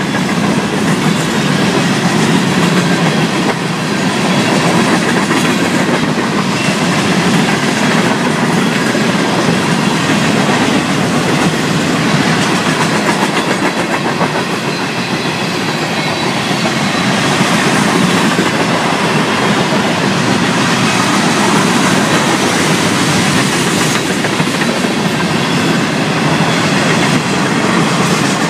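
Freight cars of a Florida East Coast Railway train (boxcars and tank cars) rolling past at close range, their steel wheels running on the rails in a loud, steady noise.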